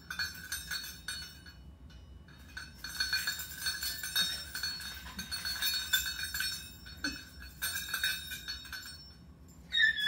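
Metal parrot toys clinking and jingling as they are handled: chains, links and small bells knocking together, with a steady high ringing underneath for most of it.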